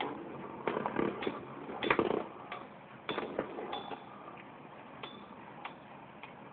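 Two metal-wheeled Beyblade spinning tops clashing in a plastic stadium: a run of sharp clinks, roughly two a second at first, then fainter and further apart.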